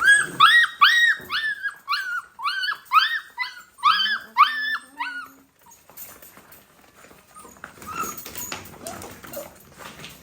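Golden retriever puppies whining and yipping: a rapid run of short, high-pitched cries for about five seconds, then the sound drops to faint rustling.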